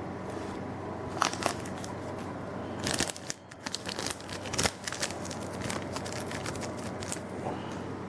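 Foil booster-pack wrapper being worked open by hand, crinkling and tearing in sharp crackles: a couple about a second in, then a dense cluster from about three to five seconds in. The wrapper is stiff and hard to open.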